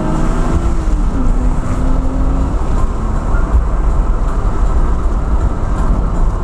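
Steady road and engine noise inside a moving car's cabin, heavy in the low rumble. Music from the car stereo plays faintly under it, its held tones dropping away about two and a half seconds in.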